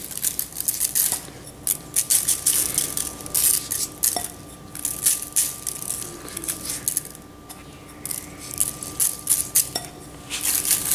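Dry rub being sprinkled by hand from a glass bowl over raw chicken wings in a disposable aluminium foil pan: irregular light ticking and rattling in clusters.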